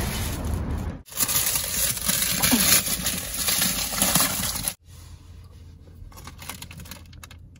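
Crinkling of a clear plastic snack bag being opened and handled. It is loud for a few seconds, then drops suddenly to fainter rustling with small clicks.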